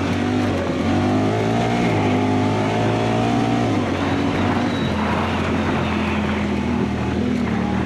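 Side-by-side UTV engine running while driving, heard from inside the open cab, its pitch shifting a few times.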